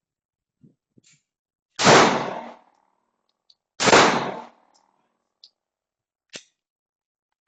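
Steel airsoft targets clanging twice, about two seconds apart, each hit ringing on briefly. A few faint short clicks come in between.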